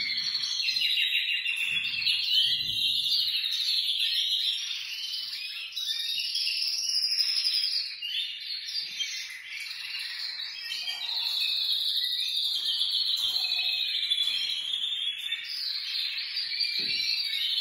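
Many caged canaries singing at once, a dense, continuous mix of warbles and rapid trills. The birds are coming back into song.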